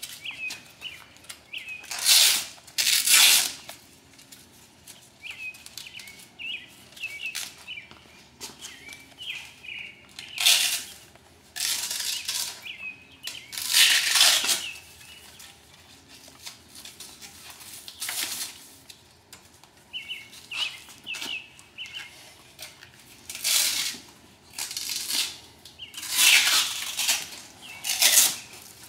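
Velcro straps being ripped apart one after another, short tearing rasps a few seconds apart, as the straps holding a paramotor cage together are undone.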